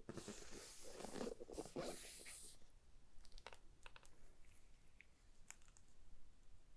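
Packaging being handled: a rustling, crinkling spell of about two and a half seconds, then a few scattered light clicks and taps.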